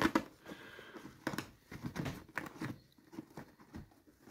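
Hands handling a zippered hard-shell carry case on a table: scattered light taps, knocks and scrapes as fingers work at the edge of the lid and the zipper pull.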